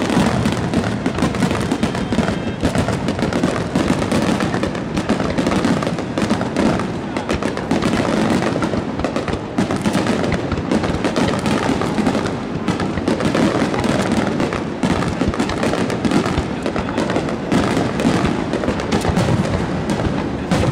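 Fireworks display: many aerial shells bursting in quick, overlapping succession, a continuous dense run of booms and crackling with no let-up.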